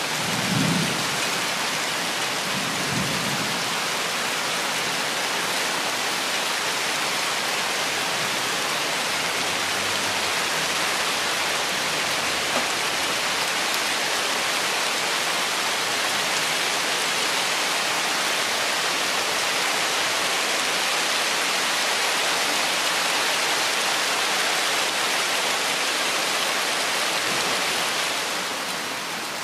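Steady rain falling on forest leaves. Two short low rumbles come about one and three seconds in, and the rain grows a little quieter near the end.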